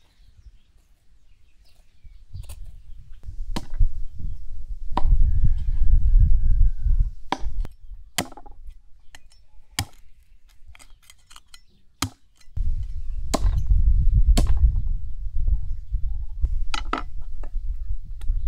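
Irregular sharp knocks of a knife chopping on a cutting board, with a few clinks, over a low rumble that comes and goes in two long stretches.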